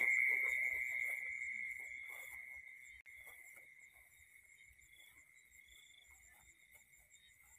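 Night insects trilling in a steady high chorus, one continuous tone with a fine pulsing above it. The chorus fades to very faint over the first four seconds. Faint rustles of steps through grass come in the first couple of seconds.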